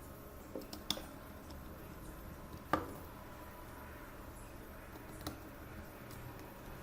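Small hard objects handled on a work surface: a few light clicks and taps, the loudest a sharper tap with a brief ring about three seconds in.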